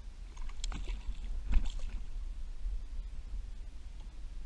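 Wind rumbling on the microphone over light water sounds around a kayak, with two brief splashes about one and one and a half seconds in.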